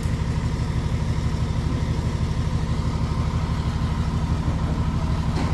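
Engine idling steadily, a fast, even low throb.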